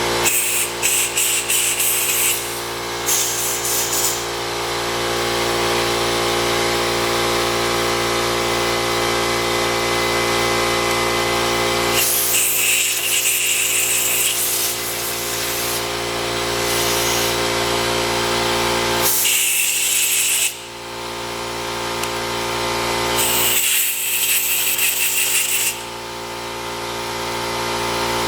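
Workshop tool work over a steady machine hum: several bursts of a high-pitched air or power tool, each one to two seconds long.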